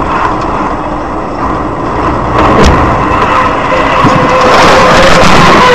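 Steady road and engine noise inside a moving car, picked up by a dashboard camera. It grows louder and harsher about two and a half seconds in, with a single click at that point.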